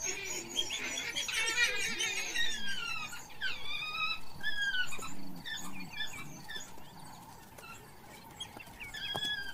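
African wild dogs twittering and squealing in high, bird-like calls, many falling chirps crowding together at first and then thinning out, with a few more near the end. This is the excited rally of the pack as it gathers to set off hunting.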